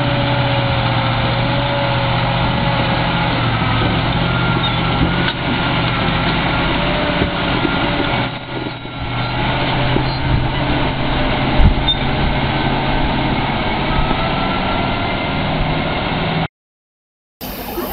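Ural six-wheel-drive log truck's engine running steadily under load as it hauls a log trailer out of mud, with a wavering whine above the engine hum. The sound cuts off abruptly near the end.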